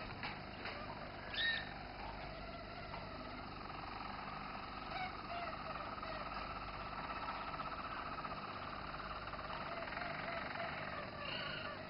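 Roller canary singing a long, steady rolling trill, low in pitch for a songbird, with a brief higher note about a second and a half in.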